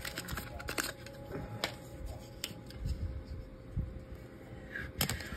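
Scattered light clicks and taps from handling trading cards and rigid plastic card holders, the sharpest one near the end, over a faint steady hum.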